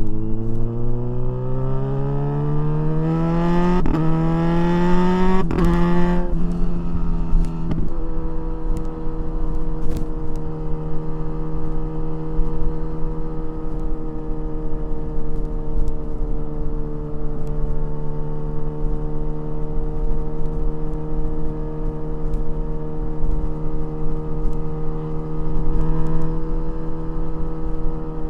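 Kawasaki Ninja 1000SX's inline-four engine pulling hard under acceleration, rising in pitch, with two quick clutchless quickshifter upshifts about four and five and a half seconds in, and wind rushing past. It then settles to a steady cruise at constant revs.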